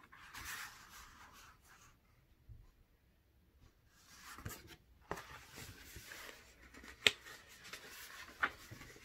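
A hardcover picture book being handled: paper rustling as it is turned around, a short near-silent pause, then more rustling with a few sharp little clicks as it is turned back and a page is turned near the end.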